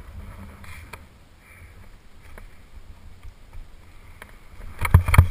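Wind rumbling on a helmet camera's microphone, then near the end a quick run of loud scraping knocks as skis start moving over chopped-up snow.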